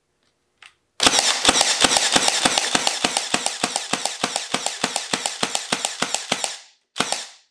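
Milwaukee M18 Fuel 18-gauge cordless brad nailer in bump-fire mode, shooting a rapid string of nails into a wooden board at about six shots a second for over five seconds, sinking each one. A brief scuffing noise follows near the end.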